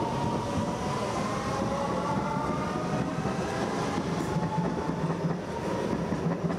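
Metro train at the station platform: a steady rumble with a faint whine that slowly falls in pitch.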